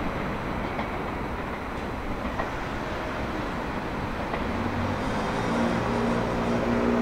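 Meitetsu electric train running along the tracks, with a steady rumble and faint wheel clicks over the rail joints. About five seconds in, a steady low hum joins.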